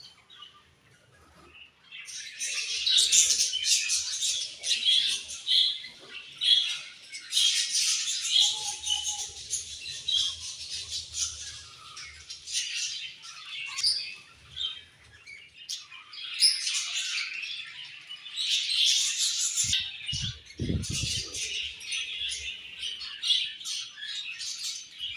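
Several budgerigars chirping and chattering in a dense, overlapping stream of quick high chirps, starting after a quiet first couple of seconds. Two dull thumps come about three-quarters of the way through.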